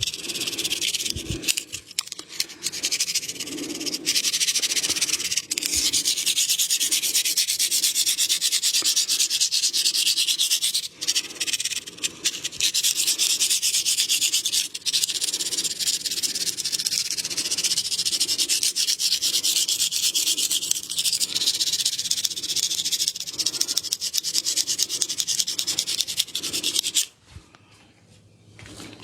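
Hands rubbing briskly over skin and hair in a neck massage: a scratchy rubbing that comes in strokes about twice a second, then stops abruptly near the end.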